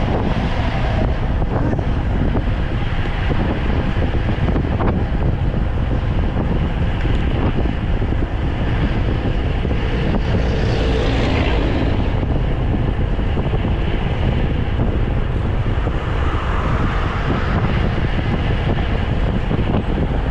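Strong wind buffeting the microphone of a camera riding along on a road bike: a loud, steady rumble.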